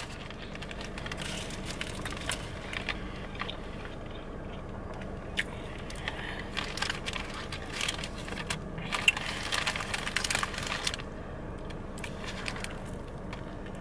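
Close-up chewing and crunching of a Taco Bell chalupa's fried shell: many small crisp crackles and mouth sounds, busiest about halfway through. A faint steady hum runs underneath.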